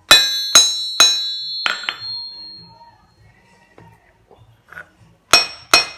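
Hammer striking a Brooks cast steel anvil, five quick blows in the first two seconds, with a very high-pitched ring that lingers for a second or two. Three more blows near the end die away much faster.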